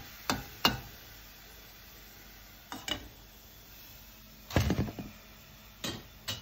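A perforated metal slotted spoon knocking and scraping against a steel frying pan and plate while fried vadais are lifted out of hot oil. There are several sharp clinks, with the loudest cluster a little past the middle, over a faint steady hiss.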